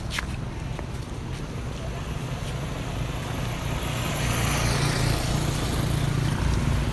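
A motorbike engine passing on the road, a steady low hum that grows louder from about three seconds in.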